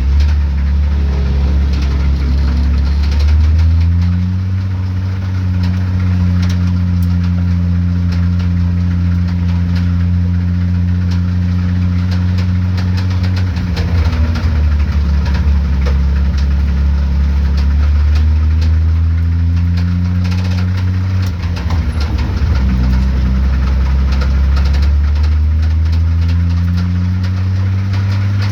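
Datsun 280Z's 2.8-litre straight-six idling with a knock, its speed dipping and picking up again several times: a rod knock.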